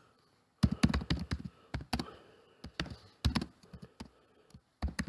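Typing on a computer keyboard: an irregular run of key clicks, starting about half a second in.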